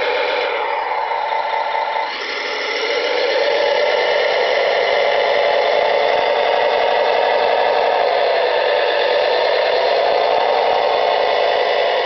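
Simulated diesel engine sound from a Servonaut sound module, played through a small speaker in an R/C track loader, running steadily with little bass. The engine note dips about two seconds in, then rises and holds.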